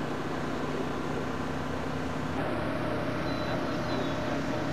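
A steady mechanical drone: continuous background noise with several held, engine-like tones that shift slightly about halfway through.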